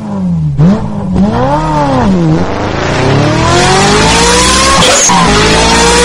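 High-revving sports car engine: two quick revs blipped up and down, then it pulls away hard, its pitch climbing steadily, with a brief dip near the end at an upshift.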